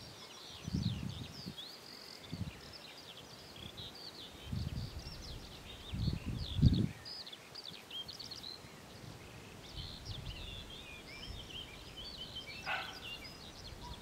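Small songbirds chirping and twittering continuously in quick, high notes. Low rumbles of wind buffet the microphone several times, the strongest about six to seven seconds in.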